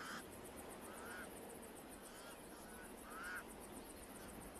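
Pied crows calling: a series of short, harsh, nasal caws, one right at the start and then several more spaced roughly a second apart, the clearest a little over three seconds in.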